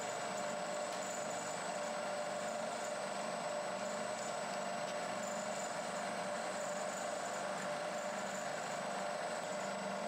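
1960s Bridgeport milling machine side-milling the edge of a metal block with an end mill, running steadily with a constant whine from the spindle and cut.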